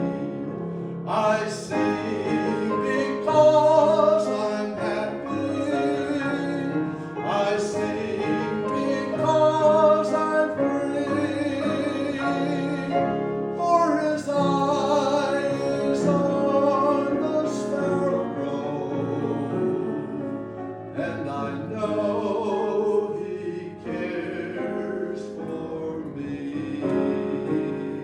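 Music: a voice singing sustained, wavering notes over piano accompaniment.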